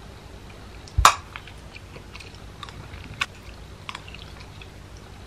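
A person eating Greek yogurt with pineapple from a ceramic bowl with a plastic spoon: quiet mouth and chewing sounds with a few soft clicks, and one sharper knock about a second in.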